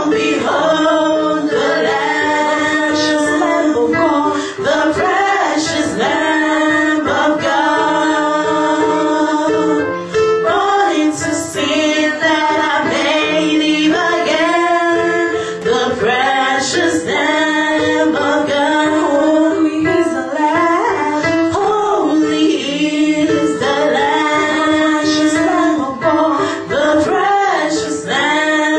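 Gospel praise-and-worship singing, with a woman's voice to the fore and a group of singers joining in.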